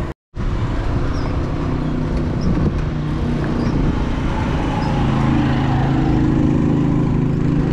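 Engine of a motor vehicle on the road, a steady low drone that grows louder about five seconds in.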